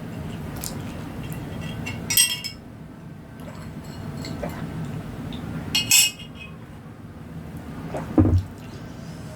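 Cutlery clinking against a plate twice, about two seconds in and again about six seconds in, with a dull knock near the end.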